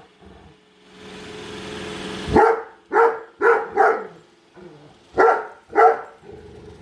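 A Great Dane barking at a running Roomba robot vacuum: six deep, loud barks in two bursts, four in quick succession and then two more a second later. Between the barks the robot vacuum's steady whirring hum can be heard.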